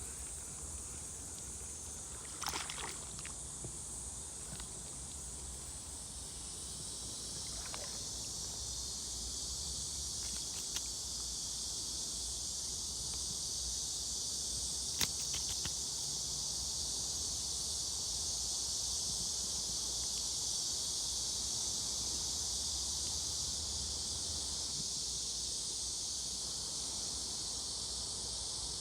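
Steady high-pitched chorus of insects, growing slightly louder after several seconds, with a few faint short clicks.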